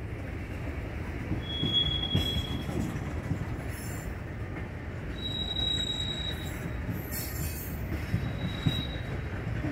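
Freight cars (tank cars and covered hoppers) rolling past at close range, a steady rumble of wheels on rail. High squeals ring out from the running gear three times: near two seconds in, around five to six seconds in, and briefly near the end.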